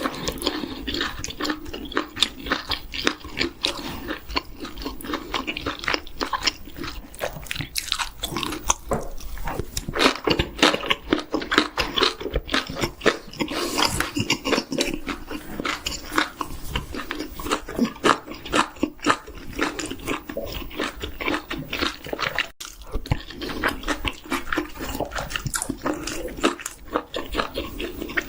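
Close-miked mukbang eating sounds: a person biting and chewing chicken, with a continuous stream of crunching and smacking clicks.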